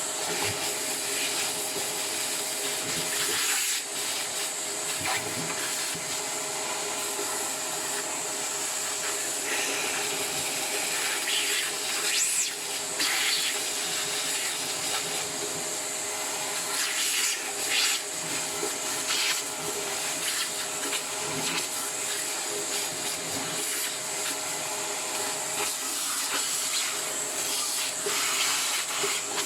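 Vacuum cleaner running steadily, its nozzle drawing loosened dust off the blades of a ventilation fan impeller. A brush or the nozzle rubs and scrapes against the blades now and then.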